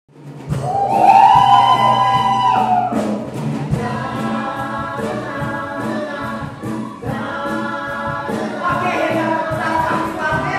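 Live band playing, with keyboard and drum kit, while several voices sing together; the music starts about half a second in.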